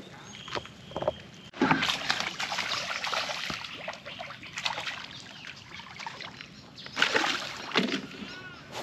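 Water splashing in irregular bursts as a hooked fish thrashes at the surface of the pond while it is being landed.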